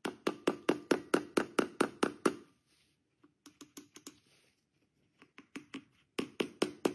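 Small hammer tapping an oil seal into the front hub of a Triumph Spitfire 1500 brake disc: a quick run of about a dozen light metal taps, roughly five a second, then a few softer taps, then another quick run at the end.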